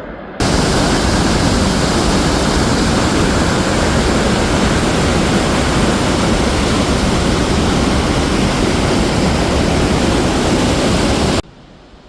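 Waterfall heard up close: a loud, steady rush of falling water. It cuts in suddenly about half a second in and stops suddenly near the end.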